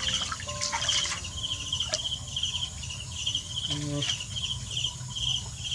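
Insect, cricket-like, chirping steadily in short trills about twice a second over a low steady background hum, with one brief low call about two-thirds of the way through.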